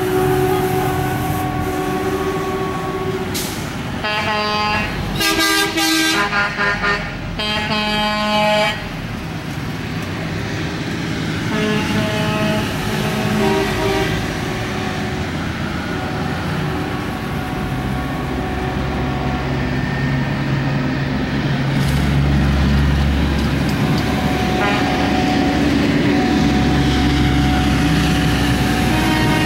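Heavy trucks driving past with diesel engines running and air horns sounding. A horn blows in several short blasts between about four and nine seconds in, with fainter horn tones around twelve to fourteen seconds and again near the end, while a deep engine rumble grows through the second half.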